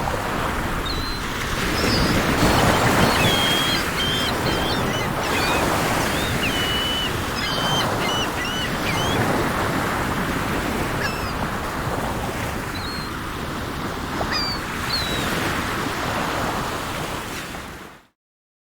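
Sea waves washing in and out in slow swells, with small birds chirping in short high notes over the surf. The sound fades out to silence just before the end.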